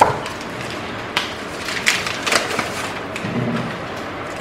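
Foil wrapper being peeled off a chocolate bar, crinkling in a few sharp rustles over the first two and a half seconds.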